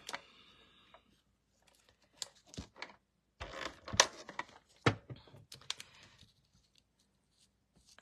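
Scattered light clicks and taps from craft tools and paper pieces being handled on a tabletop. There is a click at the start, a few ticks a couple of seconds in, and a busier run of clicks and rustles in the middle.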